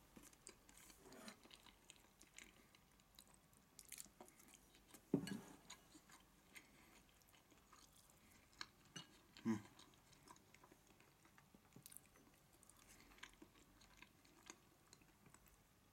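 Faint chewing and mouth sounds of a person eating a rice bowl of steamed taro and tuna stir-fry with egg, with scattered soft clicks and two short, louder sounds about five and nine and a half seconds in.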